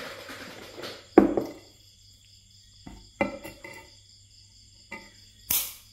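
Pliers and a thin metal wire handled on a concrete slab: one sharp metallic clack about a second in, then a few lighter clicks, and a short scrape near the end.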